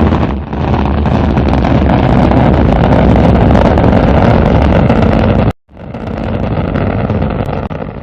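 Rocket engine sound effect: a loud rushing rumble that cuts off suddenly about five and a half seconds in, then after a brief gap a second rush swells up and fades away near the end.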